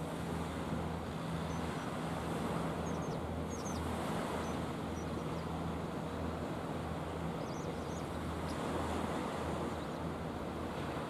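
Waves washing against the shore with wind, over a low steady hum. A few faint, high bird chirps come through about two to four seconds in and again near eight seconds.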